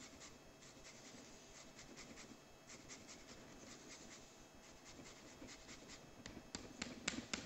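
Lime being zested on a microplane rasp grater: faint, quick scraping strokes of the peel across the blade, a little louder near the end.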